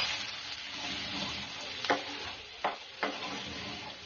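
Chopped garlic sizzling in hot oil in a nonstick frying pan while a steel spoon stirs it, with three short knocks of the spoon against the pan in the second half.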